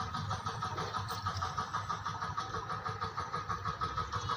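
An engine running steadily with an even, rapid throb.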